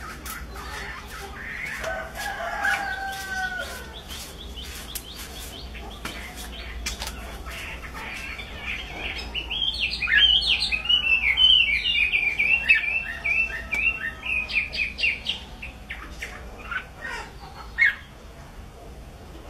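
Caged hwamei (Chinese melodious laughingthrush) singing. A few lower whistled phrases come a couple of seconds in, then a loud, rapid run of varied high notes about ten seconds in that lasts some five seconds and breaks up into scattered notes. Sharp clicks sound through the first half.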